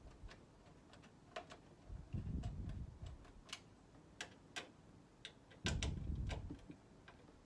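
Scattered light clicks and taps of hands working on a PC case and power supply, with two low rumbles of handling about a second long, one a couple of seconds in and one near the end.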